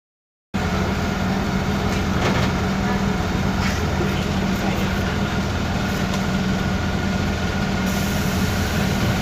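Inside a moving bus: the engine and road noise as a steady low drone, with a few light rattles, cutting in abruptly about half a second in.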